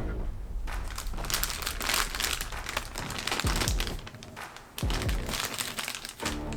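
Toy packaging crinkling and rustling in handling as a boxed figure is unpacked, in dense crackly runs with a short pause about two-thirds of the way through.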